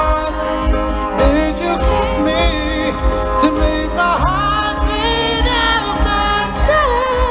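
Live pop music: a singer sings long held notes that glide and bend in pitch, over accompaniment with a steady low beat about twice a second.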